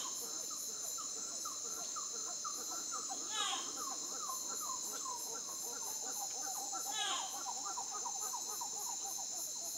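Night chorus of insects and other calling animals: a steady high insect drone with pulsing trills above it, and many quick falling chirps underneath. A louder call sweeping down in a quick trill comes about three and a half seconds in and again near seven seconds.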